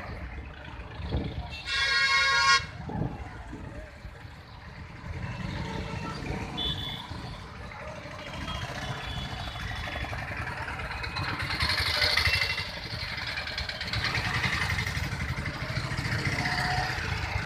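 Road traffic running steadily, with a vehicle horn honking once loudly for about a second near the start and a couple of fainter short horn toots later.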